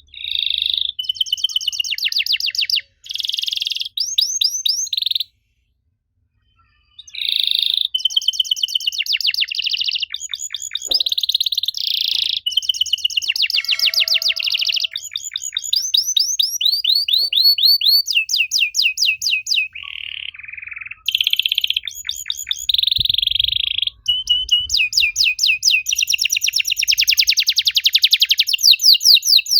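Domestic canary singing in phrases of rapid, high-pitched repeated notes and buzzy rolls, with a silent break of about two seconds near the fifth second.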